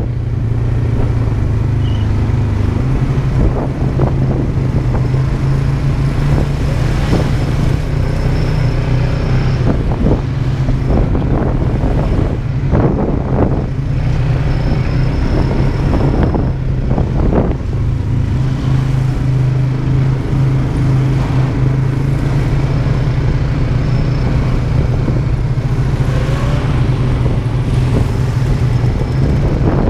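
ATV engine running under way: a steady low drone whose pitch shifts a little as the throttle changes, with occasional knocks.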